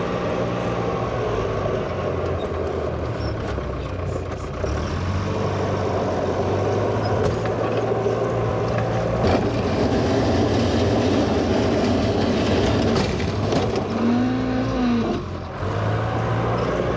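Engine of a 1963 Volvo LM225 wheel loader running steadily while snow clearing, its pitch shifting as the revs change. Near the end the engine note rises and falls briefly.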